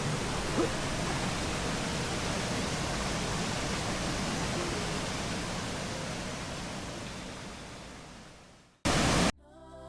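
Steady rush of a waterfall's falling water, an even hiss-like noise that fades away over the last couple of seconds. Just before the end a brief, loud burst of noise cuts in, followed by the start of music.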